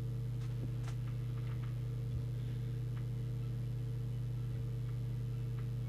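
Steady electrical mains hum, a low buzz that does not change, with a few faint clicks.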